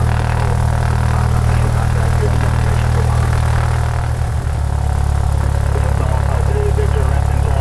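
Cessna 172's piston engine and propeller running steadily at low power while taxiing, heard from inside the cabin. The engine note shifts slightly about halfway through.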